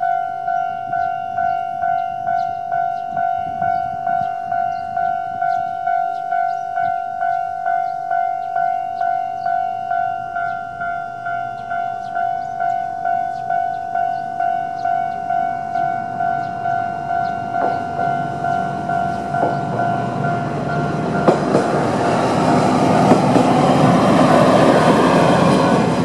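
Japanese level-crossing electronic warning bell ringing steadily at about two strokes a second. From about two-thirds in, a YR-880 diesel railcar approaches and passes over the crossing. Its engine and wheel noise grows loud, with a few rail-joint clacks, and all but covers the bell near the end.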